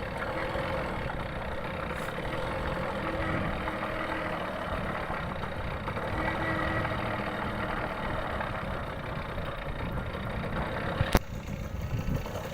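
A vehicle engine running steadily, with a single sharp click about eleven seconds in.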